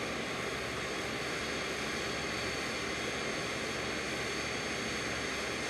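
Steady mechanical whir: an even rushing noise with several faint, high, steady whining tones, unchanging in level.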